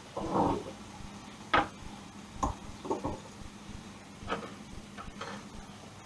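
Kitchen items being handled and put away: a short scrape, then several light knocks and clatters at irregular intervals.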